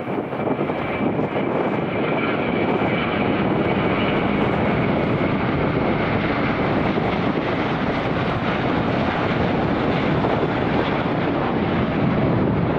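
An airliner's engines running loud and steady, with a thin high whine in the first few seconds that fades out.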